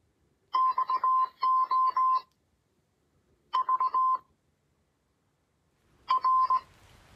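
MUZEN Wild Mini Bluetooth speaker playing its built-in prompt tones: short and long electronic beeps at one steady pitch, in three separate bursts, the first the longest.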